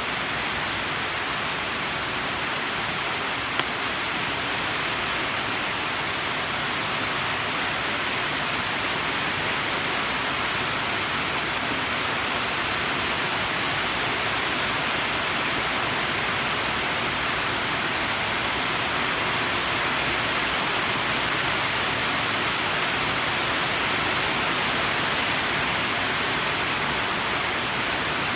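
Steady, even hiss, with a single brief click about three and a half seconds in.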